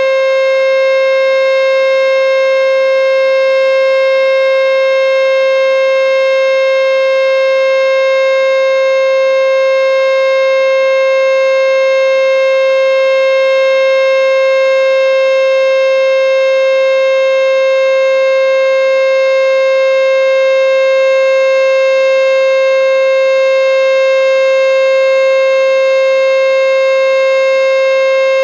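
American Signal T-121 electromechanical warning siren sounding a full-alert steady tone: one continuous, loud note that holds the same pitch throughout, with no rise or fall.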